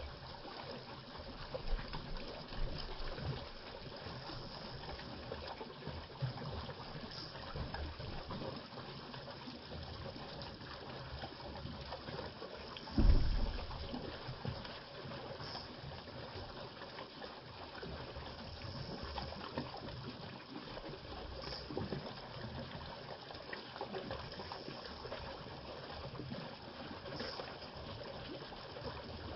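Water trickling and running steadily, with one loud low thump about thirteen seconds in.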